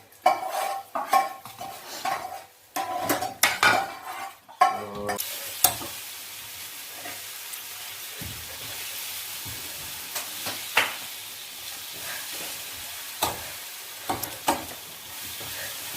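Chicken and cashew nut sauce frying in a skillet, with a utensil stirring and scraping the pan. For about the first five seconds the scraping and clatter are loud and busy; after that there is a steady sizzle with an occasional tap of the utensil on the pan.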